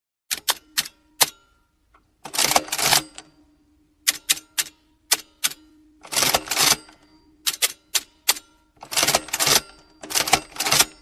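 Manual typewriter typing: single key strikes in short runs and rapid flurries of keystrokes, a few times over, with pauses between.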